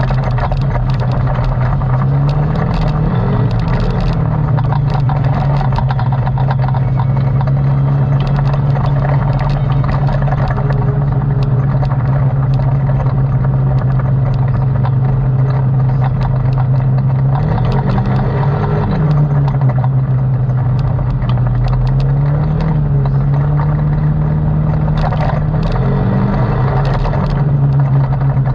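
ATV engine running steadily under way, its pitch rising and falling briefly a few times as the throttle is worked, with frequent rattles and knocks over rough ground.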